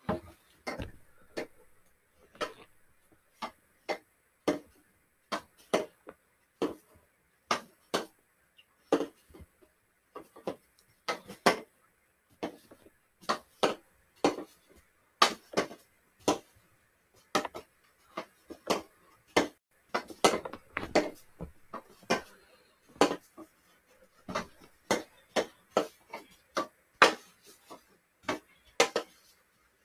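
Hockey stick blade tapping a stickhandling ball and pucks: sharp clicks, roughly two a second at uneven spacing, as the ball is pulled back and forth around the pucks.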